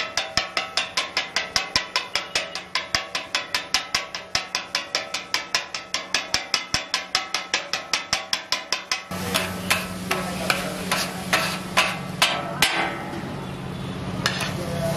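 Kothu parotta chopping: flat steel blades striking a hot iron griddle in a rapid, even clatter of about five strokes a second, chopping parotta and egg together. About nine seconds in the rhythm breaks off into a few scattered clanks and scraping over a steady low hum.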